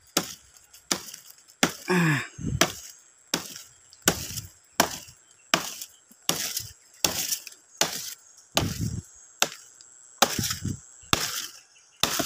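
Dual-blade tomahawk axe chopping repeatedly into a thin tree trunk, a sharp knock about every three-quarters of a second.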